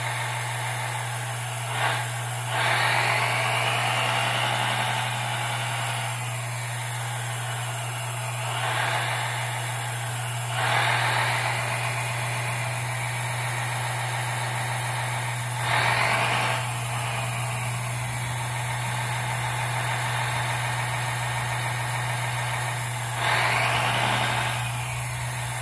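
Hydraulic pump of a 1/14 scale RC hydraulic excavator running with a steady hum. Several times a brighter hiss swells and the pitch shifts as the control valve is worked to move the boom, stick and bucket under load.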